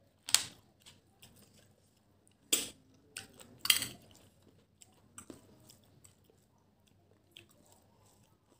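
Close-up eating sounds: quiet chewing broken by several short, sharp, wet mouth smacks, the loudest just after the start and a few seconds in.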